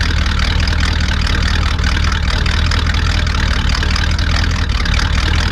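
1956 Chevrolet Bel Air V8 idling steadily through muffler-less straight pipes joined by an H-pipe crossover, giving a loud, deep, even exhaust note at the tailpipes.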